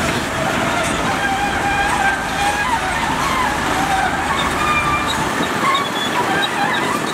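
Heavy diesel construction machinery running and working, a steady engine rumble with a whine that wavers slowly up and down in pitch.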